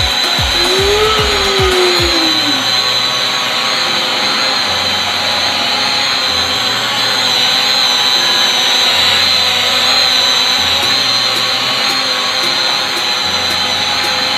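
Small quadcopter drone hovering and manoeuvring, its propellers and motors giving a steady high whine that wavers slightly as it moves.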